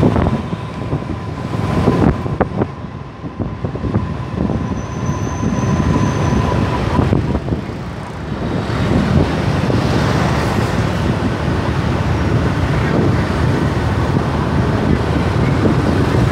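Traffic noise heard from a moving motor scooter in busy street traffic of motorbikes and cars: engine and road noise, dipping briefly about three seconds in.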